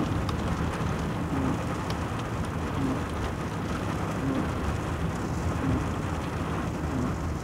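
Steady road rumble and rain hiss inside a moving car driving through rain, with a faint soft sound repeating about every one and a half seconds.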